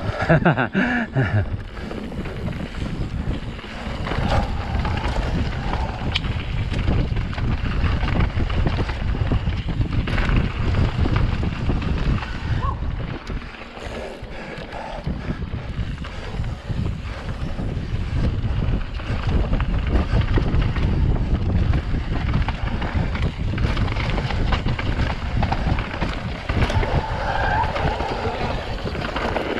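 Wind buffeting the microphone over the rumble of bike tyres on a dirt trail, with frequent rattles and knocks from the bike riding over rough ground; it eases briefly about halfway.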